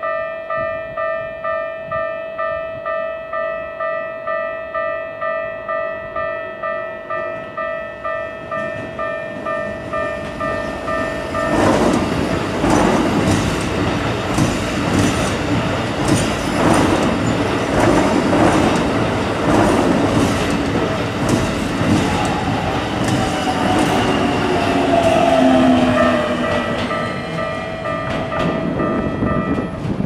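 Japanese level-crossing bell ringing steadily, about two strokes a second. About twelve seconds in, a Keikyu 2100-series electric train passes close by, its wheels clattering over the rail joints, with a whine falling in pitch near the end while the bell rings on beneath it.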